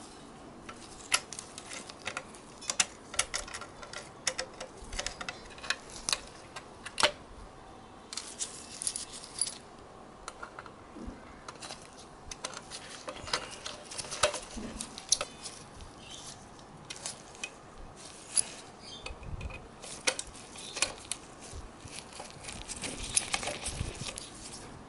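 Irregular light metallic clicks and taps of a small screwdriver and screws against the thin sheet-metal case of a digital TV converter box as screws are driven in, with a few brief scratchy stretches.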